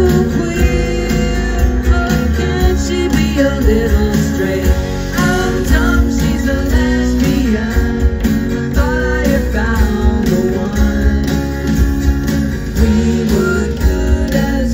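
Live music: acoustic guitar strummed with a man singing into a microphone, amplified through a small club's PA.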